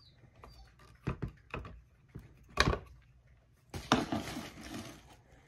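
Handling sounds of a Ravin R18 crossbow and its bolt quiver: several hard clicks and knocks, the loudest about two and a half seconds in, then about a second of rustling and scraping near the end.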